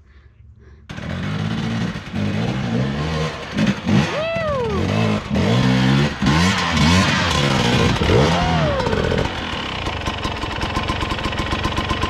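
Dirt bike engine revving up and down over and over, starting suddenly about a second in, then running more steadily near the end.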